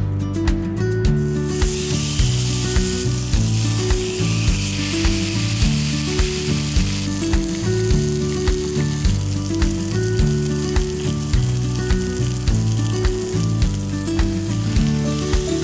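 Beef skirt steak searing with sliced garlic in oil in a frying pan: a sizzle that starts about a second and a half in and eases a little about halfway through, with background music underneath.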